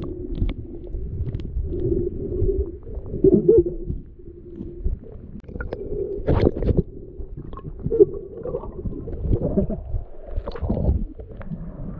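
Muffled underwater sound of river current heard through a submerged camera: a low rumble with a steady hum and scattered small clicks and knocks.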